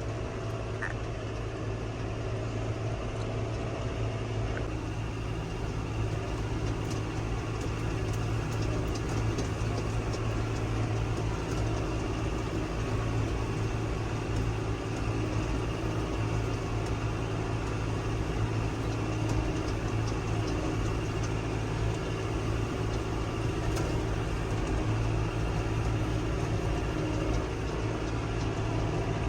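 Tractor engine running steadily under a light load, a constant low drone.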